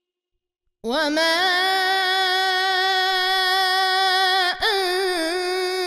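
A man's voice reciting the Quran in melodic tajweed style, Warsh reading, drawing out long held notes with a gentle waver. It comes in suddenly about a second in, after silence, and breaks off briefly a little past halfway before carrying on.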